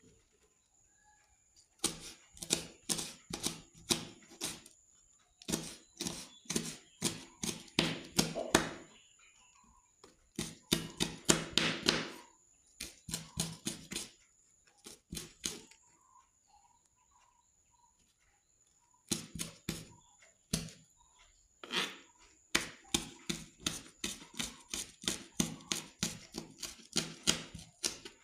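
Kitchen knife chopping chilies on a plastic cutting board: runs of quick, sharp taps, about three or four a second, broken by short pauses.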